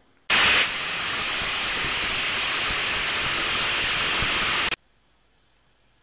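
Loud, even static hiss that switches on abruptly just after the start, holds perfectly steady, and cuts off suddenly about three-quarters of the way through, leaving near silence.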